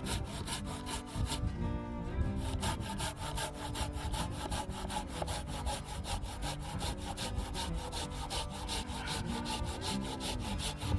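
Outro music: a melody of stepping notes over a fast, perfectly even scratchy percussion beat.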